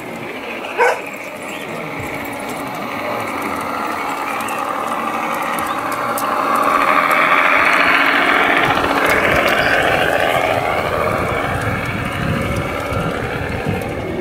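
G-scale model railcar (a T34 WEG model) running along garden-railway track, its wheels and drive whirring louder as it passes close, then fading. A short, sharp yelp about a second in is the loudest single sound.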